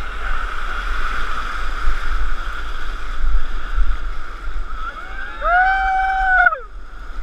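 Whitewater rushing and churning around a kayak in the foam below a weir, with a steady low rumble of water and wind on the microphone. About five seconds in, a voice calls out in one long high note for just over a second, then the rush drops back.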